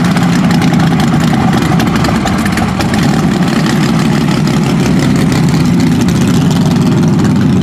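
Formula Offroad buggy's engine running loudly and steadily at low revs as the car drives slowly over dirt.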